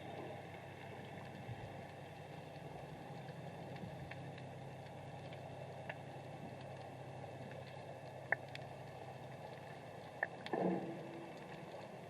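Underwater ambience picked up by a submerged camera: a steady low hum and hiss with a few scattered sharp clicks, and a short louder knock about ten and a half seconds in.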